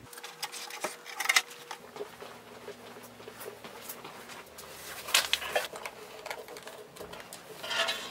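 Scattered light clicks, knocks and rubbing of handling noise as someone moves about with a handheld camera, over a faint steady hum.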